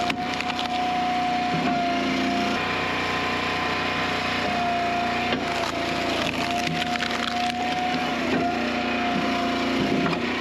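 Eastonmade hydraulic wood splitter running, its engine and pump humming steadily while wood cracks and splinters apart under the wedge.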